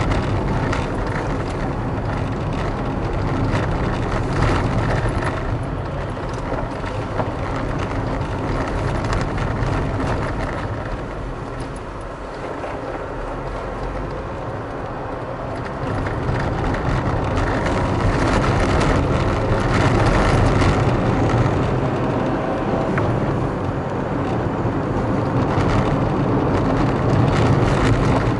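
Car engine and tyre noise while driving on city streets, continuous; it eases for a few seconds about halfway, then grows louder again.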